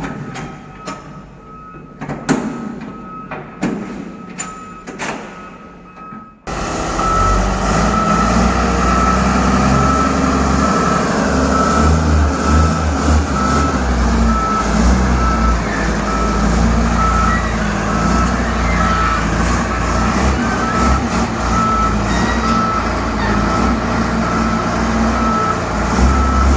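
Scattered knocks and clicks. About six seconds in, a heavy machine's diesel engine cuts in suddenly and runs steadily, with a reversing alarm beeping over it in an even rhythm.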